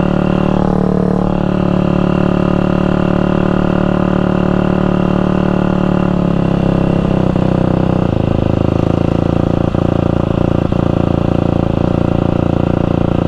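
KTM dirt bike engine running under way, heard from the rider's position: a steady engine note that drops to a lower pitch in two steps, about six and eight seconds in, as the bike slows toward an intersection.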